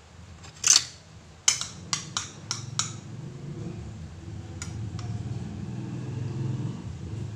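Spoon and fork clinking and scraping on a plate of food in a string of sharp clinks, the loudest about a second in and fainter ones near the end, over a low steady hum.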